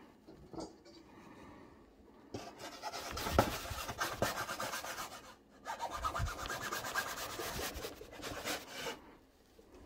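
Wooden pizza peel scraping back and forth across a round baking pan dusted with flour or meal, as a dough boule is worked off the peel onto it: two long stretches of gritty rubbing with a brief pause between, and a sharp knock about three and a half seconds in.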